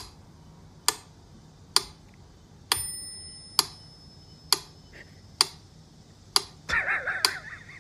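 Mechanical pendulum metronome ticking steadily, about one tick every 0.9 seconds, with its bell ringing along with one tick about three seconds in. A short wavering pitched sound comes in about seven seconds in.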